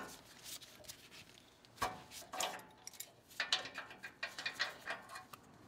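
Faint, scattered metallic clicks and scrapes of a wrench and gloved hand working an oxygen sensor loose from the exhaust pipe, starting about two seconds in.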